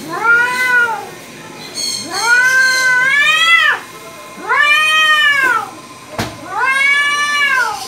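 Domestic cat yowling angrily at another cat: four long, drawn-out yowls, each rising and then falling in pitch. A sharp click comes a little after six seconds in.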